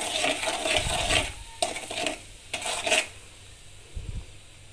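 A metal spatula scrapes and stirs in an aluminium kadai, in three strokes through ground pepper, salt and turmeric in hot oil. After the strokes the oil sizzles softly.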